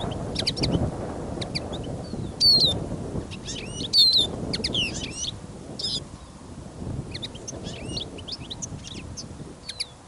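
Small finches chirping and twittering in many short, quick calls, over gusting wind rumbling on the microphone.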